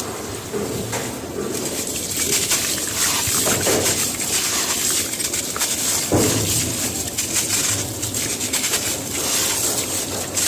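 Dry, gritty cement crumbling and crunching into water, a continuous crisp crackle with a few heavier soft breaks.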